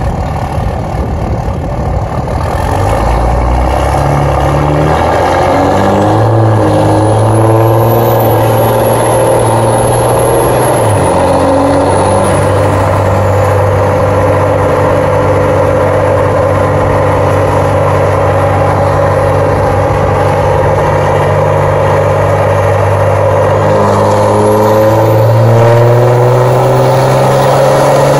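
Cummins turbo-diesel with a 5-inch straight-pipe exhaust run under full load on a chassis dyno, the engine note climbing as it pulls through the gears of the automatic transmission. The pitch drops at a shift about eleven seconds in, then climbs again near the end, with a high whistle over the engine at times.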